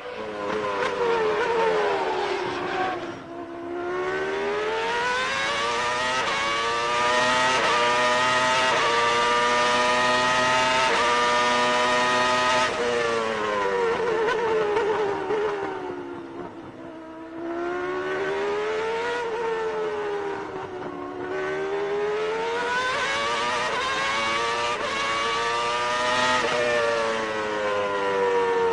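Mercedes V10 of a 1995 McLaren MP4/10 Formula 1 car heard onboard at full racing pace: the engine note climbs through the gears in quick stepped upshifts, then falls away under braking as it is downshifted. It drops almost to off-throttle twice, about three seconds in and near the middle, then winds back up.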